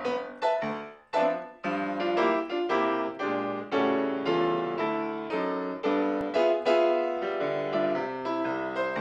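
Background piano music: a gentle piece of struck chords and melody notes, each ringing and fading, with a brief pause about a second in.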